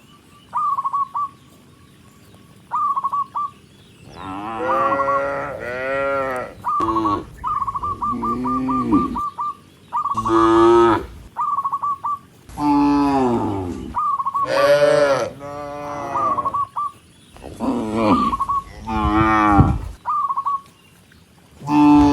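Several cattle mooing in turn and overlapping, long drawn-out calls starting about four seconds in and continuing through the rest. Short, high, rapidly trilled chirps sound in the quieter gaps, the first within the opening second.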